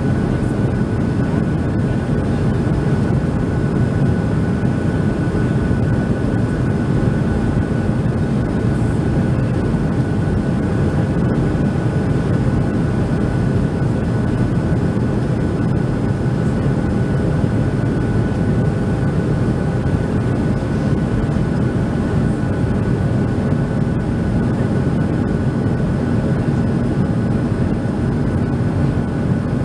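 Steady in-flight cabin noise of a Boeing 737-700 heard from a window seat over the wing: its CFM56-7B engines and the rushing air make an even low rumble, with a thin steady tone above it.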